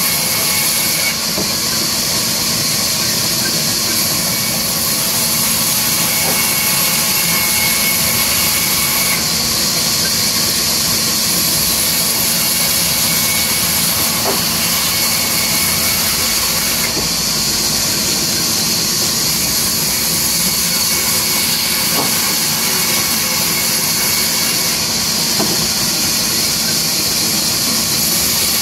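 Sawmill band saw running steadily and ripping timber beams: a loud, continuous high hiss over a steady low motor hum. The hiss shifts slightly about every eight seconds as the cut changes.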